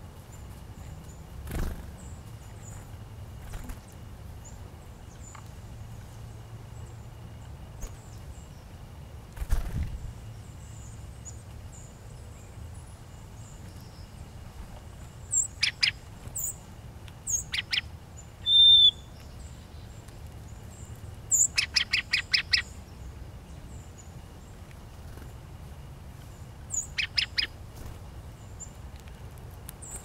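Wild songbirds calling at a seed spot: faint high chips throughout, and several bursts of rapid sharp chip notes around the middle and again near the end, with one short loud whistled note in between. Two soft thumps early on come from birds' wings as they flutter in and off.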